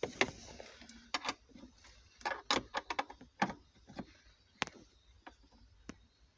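Scattered light clicks and knocks from hand-tool work as a fastener on a car's airbag control unit is tightened, irregular, with a quick run of clicks about two to three seconds in.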